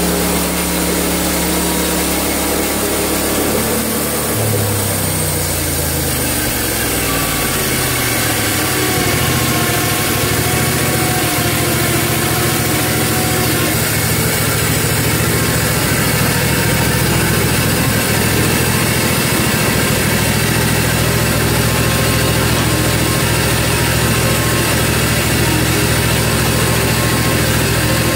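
Small gasoline engine of a Hud-son Homesteader HFE30 portable band sawmill running. Its speed changes a few seconds in, then it runs steadily at a higher speed.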